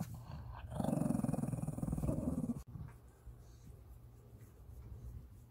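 Shih Tzu growling low for about two seconds, then the sound cuts off suddenly.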